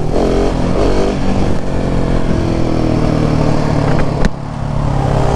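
Motorcycle engines pulling under acceleration along a road, their note climbing and then holding, with wind rushing on the helmet microphone. About four seconds in there is a short break in the engine note with a click, then it pulls again.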